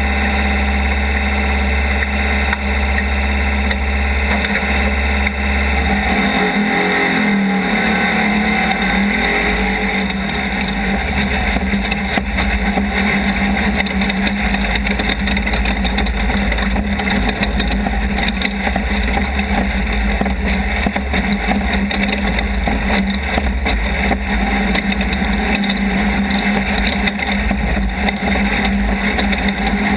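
Off-road race vehicle's engine running hard and steadily at speed. About six seconds in the low rumble drops away and the engine note dips and climbs back over a few seconds, then holds steady again.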